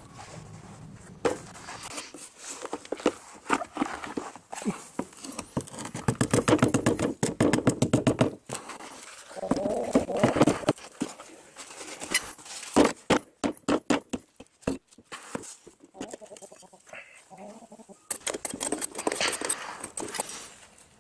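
Damp casting sand being dug and scraped by gloved hands in a plastic tub: gritty crunching and scraping strokes, with squeaky creaking stretches midway as the steel pot and the tub rub together.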